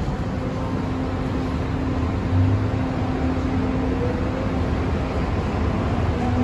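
Interior running noise of an MTR M-train electric multiple unit: a steady hum and rumble with a held motor tone, a low bump about two and a half seconds in, and a faint rising whine near the middle as the train begins to accelerate away.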